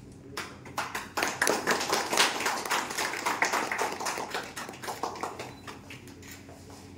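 Applause from a small audience: a few scattered hand claps, swelling into a full round about a second in, then dying away over the next few seconds.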